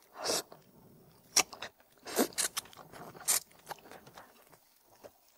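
Close-miked eating sounds: chewing and sucking on a piece of red-braised oxtail, with wet lip smacks in short irregular bursts.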